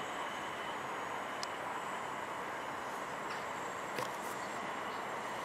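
Steady whirring hum of a distant multirotor drone's motors and propellers in flight, with a couple of faint ticks.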